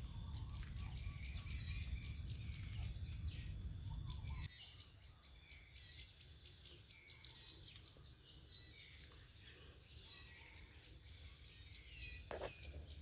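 Small birds chirping: many short, high chirps, one after another. A low rumble lies under the first four seconds or so and stops abruptly.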